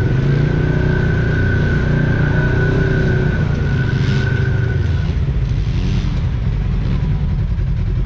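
Side-by-side UTV engine running under way, its revs rising and falling, with a steady high whine that stops about five seconds in.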